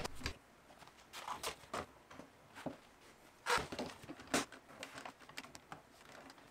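Scattered light clicks and knocks of steel bar clamps being set on a small wooden cabinet and tightened during a glue-up. The loudest knock comes about three and a half seconds in.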